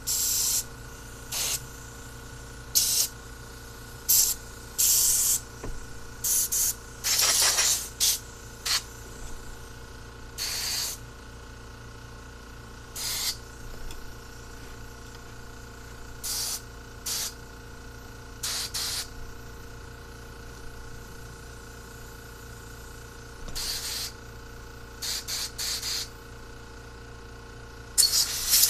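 Compressed-air blow gun blasting a carburetor clean in short, irregular hissing spurts, some a fraction of a second and a few up to about a second long, with a steady low hum underneath.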